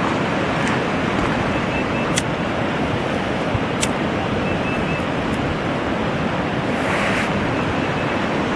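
Steady rushing of a river in flood, a continuous wash of fast-moving water.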